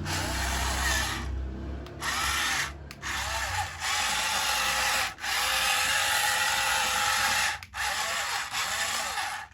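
Small electric motor and plastic gearing of a toy RC construction vehicle whirring, in several stretches broken by short gaps.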